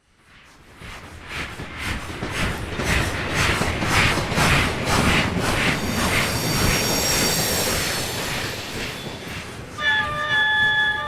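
Steam locomotive passing close by, its exhaust chuffing in an even rhythm of about two to three beats a second as it grows louder. A high thin squeal runs through the middle, and a steady held tone of several notes sounds near the end.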